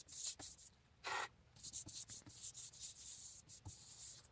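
Bristle brush spreading glue across an MDF panel: a run of short scratchy swishing strokes, one louder and fuller about a second in.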